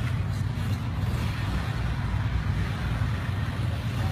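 Small motorbike engines running steadily, with no revving up or down.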